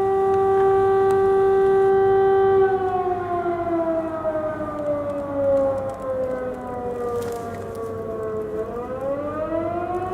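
Civil-defence air raid siren wailing: it holds a steady tone, then slowly falls in pitch for about six seconds and rises again near the end.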